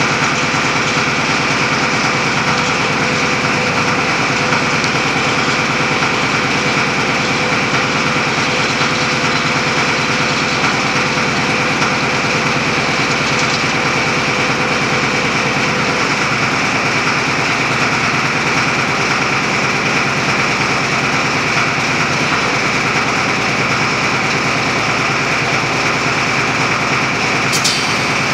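Underground roof-bolting rig running steadily while it works a bolt into the gallery roof. A steady tone within the machine noise stops about halfway through, and a brief sharp high sound comes near the end.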